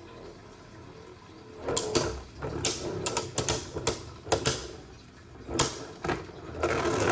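Beyblade Burst spinning tops clashing in a plastic stadium: sharp, irregular plastic clacks and knocks, starting about two seconds in.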